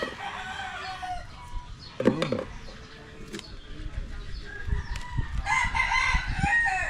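Rooster crowing twice: a crow of about a second at the start and a longer, louder crow near the end.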